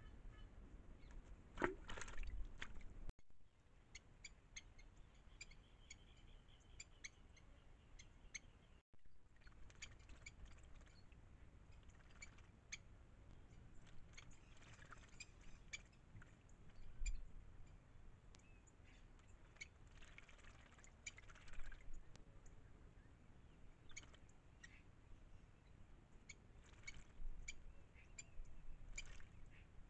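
Faint, scattered short bird chirps and calls. There are bursts of soft splashing where a bird bathes in the shallow water.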